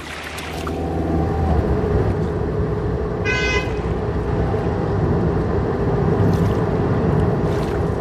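A car driving past with a steady engine rumble, and one short horn honk about three seconds in.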